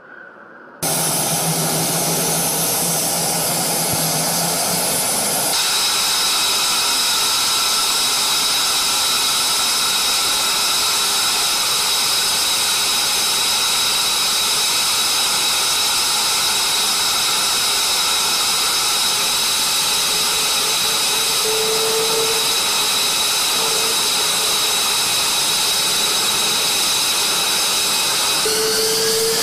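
F-22 Raptor jet engines running, a loud steady hiss with a high-pitched turbine whine over it. It cuts in suddenly about a second in and changes tone about five seconds in.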